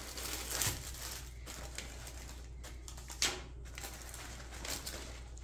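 Faint rustling and handling of a rolled canvas as plastic bags of diamond-painting drills are pulled out from inside it, with one sharper crinkle about three seconds in.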